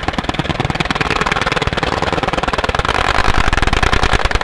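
A long, unbroken burst of rapid automatic gunfire, the shots coming in a fast, even rattle, loud and close.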